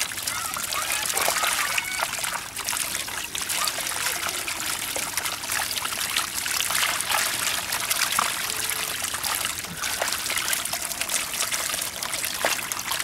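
A mass of small puti barbs flapping and splashing in shallow muddy water: a steady dense crackle of tiny splashes over trickling water.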